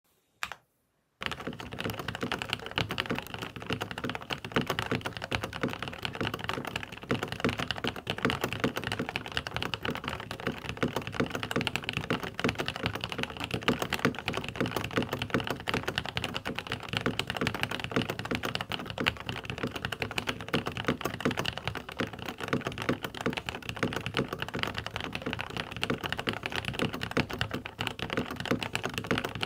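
Fast, continuous typing on a mechanical keyboard: a dense, unbroken run of key clacks that starts about a second in.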